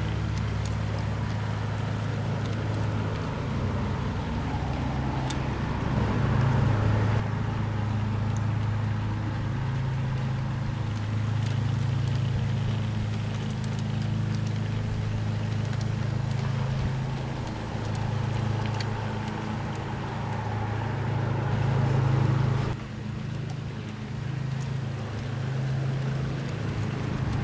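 G-scale model CNR GP7 and F3 B unit diesel locomotives running slowly along garden railway track, a steady low drone with the rolling noise of the wheels on the rails.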